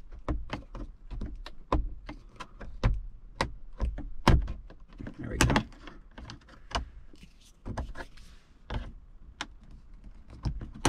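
A thin pry tool clicking, tapping and scraping against the plastic L-shaped trim cover beside the overhead console of a 2020 Chevy Silverado 3500 as the cover is levered up off its clips. It makes a run of irregular sharp clicks and knocks, about two or three a second.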